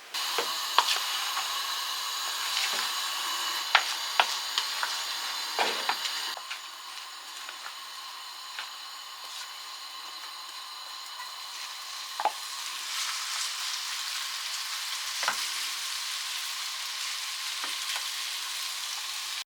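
Vegetables sizzling in a hot frying pan as they are stirred, with occasional sharp clicks of the utensil against the pan. The sizzle eases a little partway through and cuts off suddenly near the end.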